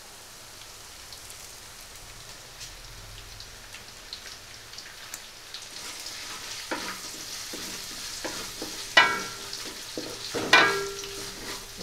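Ginger, garlic and curry leaves sizzling and crackling in hot coconut oil in an aluminium pan, faint at first and growing busier after about six seconds. A wooden spatula stirs through them, with two louder scrapes against the pan near the end.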